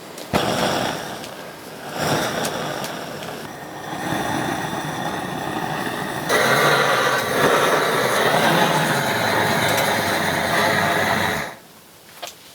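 A motor running with a steady hum, growing louder and higher about six seconds in, then cutting off abruptly near the end.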